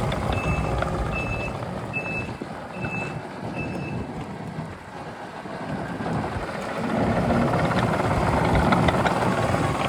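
Takeuchi TL12V-2 skid steer's backup alarm beeping, five short high beeps about one every 0.8 seconds, over its diesel engine running; the beeping stops about four seconds in and the engine grows louder near the end.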